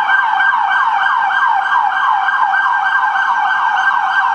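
Emergency vehicle siren in its fast yelp mode, loud and close: a rapid string of falling pitch sweeps, about four a second, with no break.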